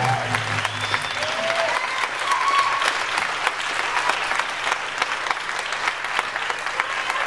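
Audience applauding and cheering, with a few whoops. The last low notes of the music die away in about the first second.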